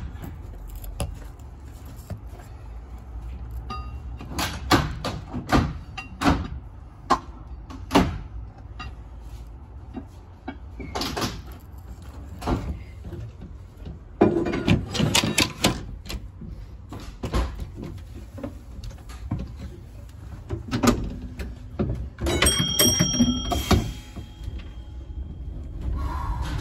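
Irregular knocks, clunks and rattles of fittings being handled inside a W-class tram, over a low steady rumble, with a dense burst of clatter about halfway through. A brief high-pitched tone sounds near the end.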